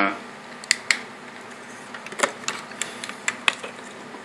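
Several short, light clicks and taps at irregular intervals, about seven of them, over a faint steady background: handling noise as the camera is moved around the engine bay.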